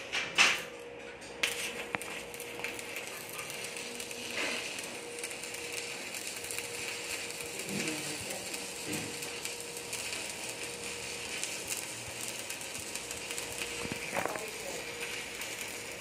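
Stick (shielded metal arc) welding: a few sharp cracks in the first second and a half as the electrode's arc is struck, then the arc's steady crackling sizzle as the bead is run, over a faint steady hum.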